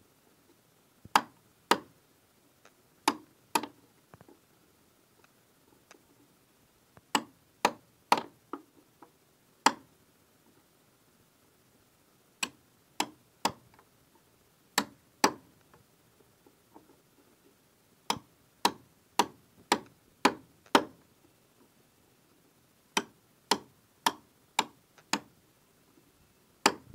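Hammer striking a chisel as it cuts a notch into the edge of a wooden board frame: sharp taps in short runs of two to five, with pauses of a second or more between runs.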